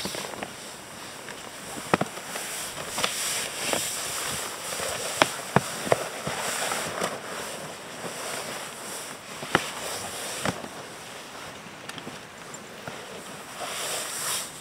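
Irregular sharp clicks and knocks scattered through, over a steady hiss that swells and fades.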